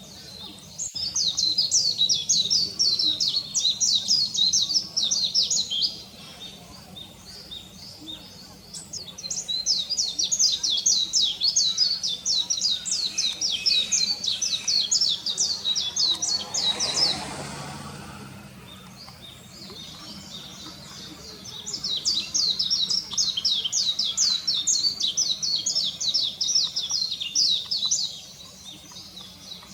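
Japanese white-eye song: three long bouts of fast, high twittering with short pauses between them. A brief soft rushing noise comes a little past halfway.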